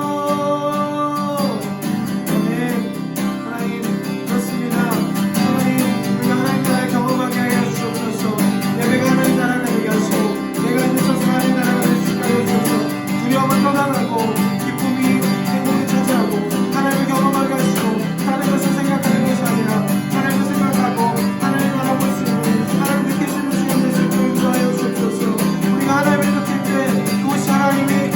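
Acoustic guitar strumming a slow worship accompaniment, with a voice singing or calling out over it; a held vocal note opens the first second or so.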